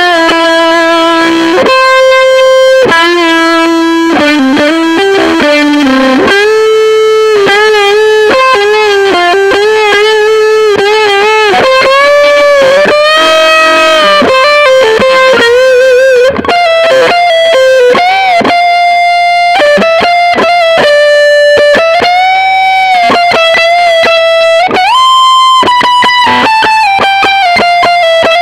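Distorted electric guitar played through a Mesa Boogie Recto-Verb 25 all-tube combo amp: single-note lead lines and solo phrases, with long held notes shaking in vibrato and bending in pitch. The playing breaks off briefly about two-thirds of the way through, then goes on.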